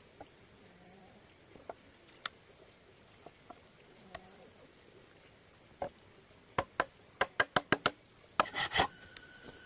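Bamboo being worked by hand: a few scattered light knocks, then a quick run of about eight sharp wooden taps, and a short rasping scrape near the end. A steady high insect drone runs underneath.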